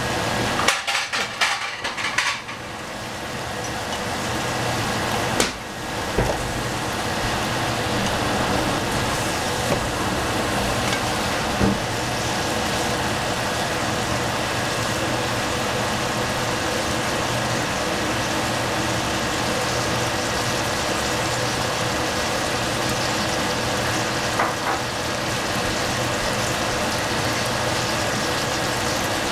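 A pan of baby bok choy, onion and bean thread cooking in added water, giving a steady bubbling hiss. A few clacks of a utensil against the pan come in the first couple of seconds, and one more a few seconds later.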